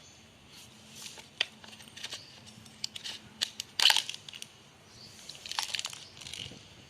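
Scattered clicks, small knocks and scrapes of metal parts and hand tools being handled while a marble grinder with a failed bearing is taken apart, with a short clatter about four seconds in.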